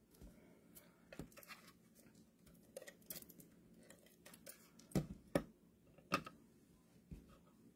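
Faint, scattered clicks, taps and paper rustles from hands working with paper card pieces and an adhesive tape runner on a tabletop. The sharpest clicks come around five to six seconds in, as the tape runner puts adhesive on a small paper letter.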